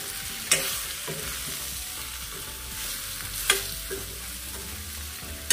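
Spatula stirring and scraping spiced raw mango pieces around an iron kadhai, with oil sizzling steadily underneath. The spatula knocks sharply against the pan about half a second in and again about three and a half seconds in.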